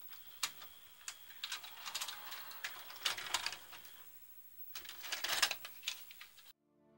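Sony SLV-60HFBR VCR's tape mechanism unloading the tape and ejecting the cassette after Stop/Eject is pressed: a run of clicks and a rattling motor whir, then a second burst of clicking about five seconds in as the cassette is pushed out. The mechanism runs on a replacement drive belt cut from a bicycle inner tube.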